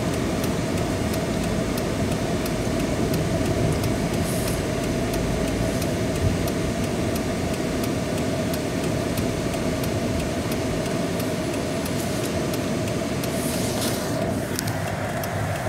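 Steady car cabin noise heard from inside the car, with a constant hum that cuts off about a second before the end.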